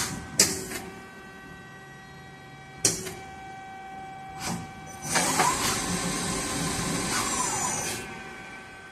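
Hyundai-WIA KIT450 CNC machining center running: a steady electrical hum broken by three sharp clicks, then a motor whirring for about three seconds, rising and then falling in pitch.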